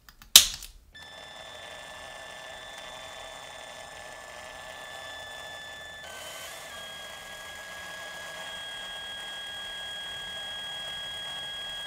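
One sharp snap of a centre punch on the rivet post of a diecast toy car, then a power drill running with a steady high whine as a gold twist bit drills out the rivet. The whine dips briefly in pitch about six seconds in, then steadies again.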